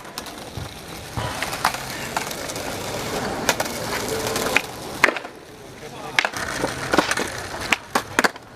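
Skateboard rolling, with sharp cracks of the board popping and landing. The loudest crack comes about five seconds in, and several smaller clacks come near the end.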